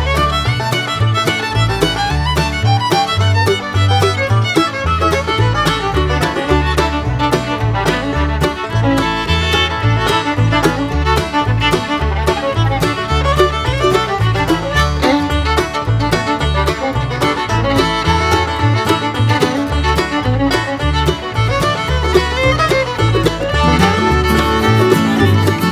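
Background music led by fiddle over a steady plucked-string beat, in a bluegrass or country style.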